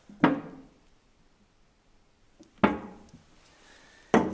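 Three sharp knocks a second or two apart, each ringing briefly, from the plastic oil jug and metal funnel as engine oil is poured into a motorcycle engine.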